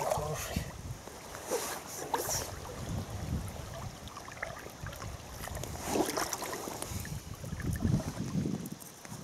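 River water running and splashing around a hooked ide as it is grabbed from the riffle and unhooked, with wind rumbling on the microphone. A few brief louder splashes or handling noises stand out, about two seconds in and again near the end.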